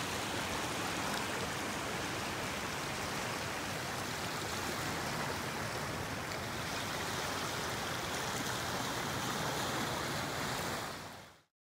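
Small waves washing and swirling over a shallow reef-rock shoreline: a steady rush of water that fades out quickly near the end.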